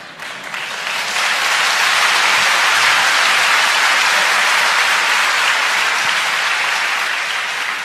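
An audience applauding in a hall, swelling up within the first second, holding steady, and tapering off near the end.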